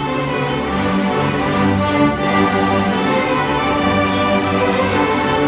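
School string orchestra playing: violins and other bowed strings come in suddenly together on full, sustained notes and carry on steadily.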